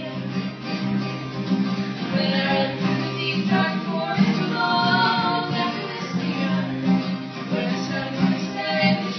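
Live acoustic guitar playing with a woman singing.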